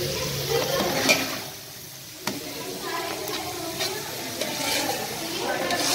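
A metal ladle stirring green peas and tomato through a steaming pot of watery masala, the liquid sloshing and bubbling, with several sharp clinks of the ladle against the pot.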